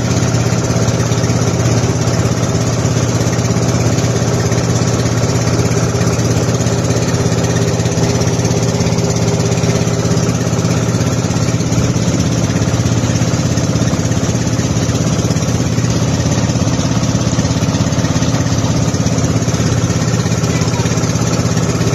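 Island-hopping boat's engine running steadily at an even pitch, with a hiss of wind and water over it.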